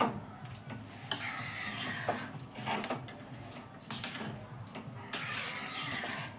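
A spatula stirring thick khichuri in an aluminium kadai, scraping along the pan with sharp knocks against its side.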